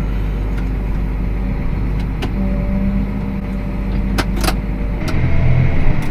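Tractor engine running steadily, with a few sharp clicks. About five seconds in the engine note changes to a heavier, louder running.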